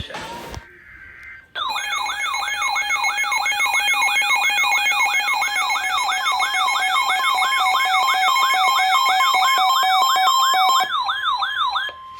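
Emergency alert attention signal: a loud electronic siren-like tone sweeping upward about two and a half times a second over steady tones. It starts about a second and a half in and cuts off shortly before the end. It is the signal that an emergency alert, here a tornado warning, is about to be read.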